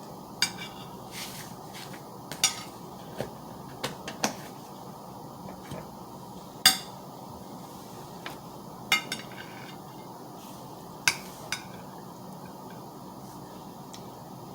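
Cutlery clinking and tapping against dishes during eating: about a dozen short, sharp clicks at irregular intervals, the loudest about halfway through.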